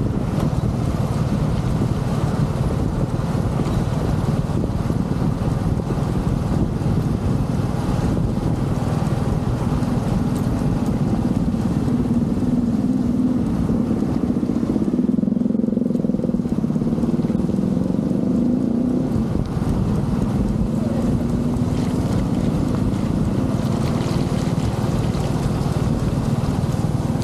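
Motorcycle engine running at riding speed under heavy wind rumble on the bike-mounted camera's microphone. The engine note swells and rises a little about halfway through, then eases back.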